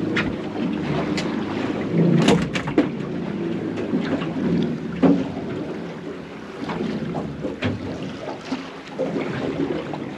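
Small boat on the water with wind on the microphone and a steady low rumble, broken by scattered knocks and thumps; the loudest come about two and five seconds in.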